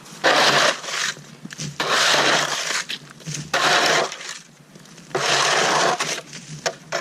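Snow shovel scraping and pushing through snow in repeated strokes, about one every second and a half.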